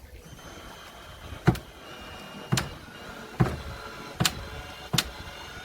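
Five sharp knocks, roughly a second apart, over a faint steady hum.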